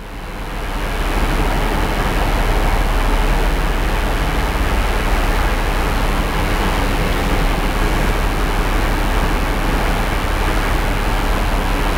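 Steady, loud hiss with a low hum underneath: the recording's background noise, swelling up over the first second and then holding even.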